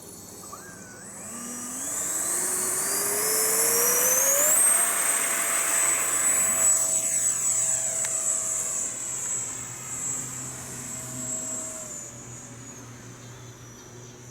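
The 80mm electric ducted fan of a radio-controlled F-4 Phantom jet spools up in a rising whine over the first few seconds. It then holds a steady, high-pitched jet-like whine over a rushing sound. The sound fades over the second half and drops slightly in pitch near the end.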